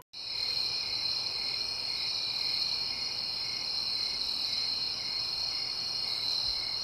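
Crickets trilling steadily in a continuous high chorus, with a fainter pulsing note beneath it.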